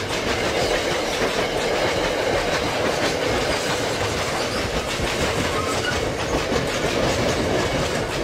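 MBTA Commuter Rail bi-level passenger coaches passing close by: a steady rumble of steel wheels on the rails with a clickety-clack as the wheels cross the rail joints.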